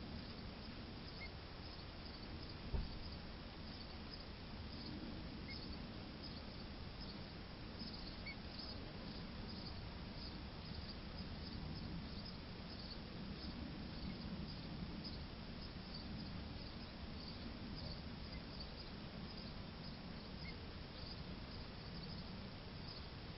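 Outdoor background noise with faint, high chirps repeating a few times a second, and a single low thump about three seconds in.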